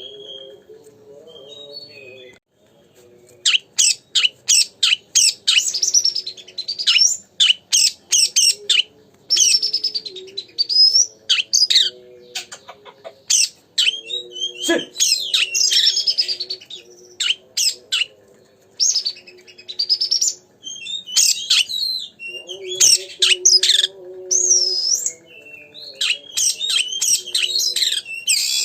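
Oriental magpie-robin (kacer) in full song: loud, rapid phrases of sweeping whistles and chattering trills, starting after a short lull about three seconds in. A lower, steadier tone runs underneath.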